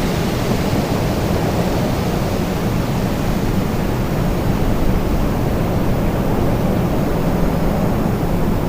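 Strong storm wind blowing, a loud, steady, deep rush with no distinct gusts or breaks.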